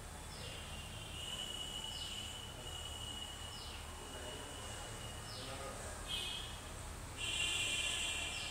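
High-pitched background animal calls: a steady thin tone, crossed by a short falling whistle about every second and a half, then a louder, buzzier high call near the end.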